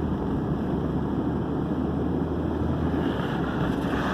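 Steady road and engine noise inside a moving car's cabin, with a low hum that eases off about three seconds in.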